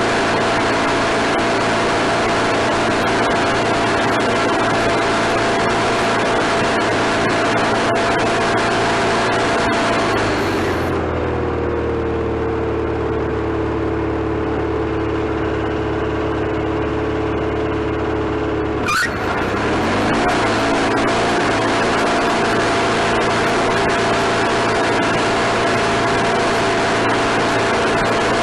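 Wood-Mizer LT40HD sawmill's engine running at speed on a temporary fuel tank. About ten seconds in it settles down to a lower, steadier running speed, and a few seconds before the end it revs quickly back up.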